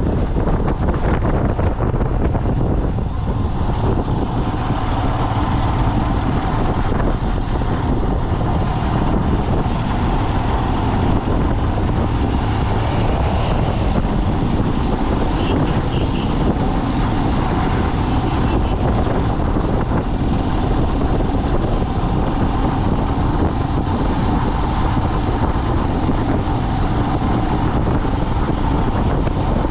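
A moving vehicle's steady engine and road noise, running evenly without a break.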